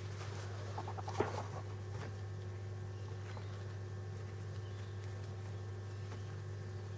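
Month-old Senegal parrot chicks giving a brief burst of rapid chattering calls about a second in, ending in a sharp click; a steady low hum runs underneath.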